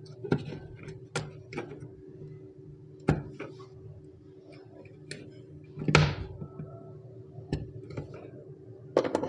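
Scattered clicks and knocks of ring-lug wires and a screwdriver being worked on a screw terminal block, the loudest knock about six seconds in. Near the end comes a quick cluster of clicks as a power plug is pushed into a wall socket. A steady low hum runs underneath.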